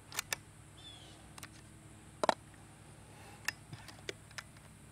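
Short mechanical clicks from handling an FX Wildcat MK2 Compact .25 PCP air rifle on the bench: a quick pair near the start, a sharper snap about two seconds in, and a few lighter clicks near the end. A bird chirps once near the start.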